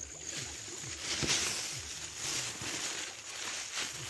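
Splashing and rustling in shallow water as a small fish is grabbed by hand. Behind it run a low throb repeating about three times a second and a steady high insect hum.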